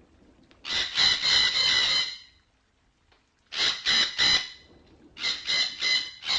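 Red-breasted parakeet calling: one long call about a second in, then three short calls in quick succession, then a faster run of short calls near the end.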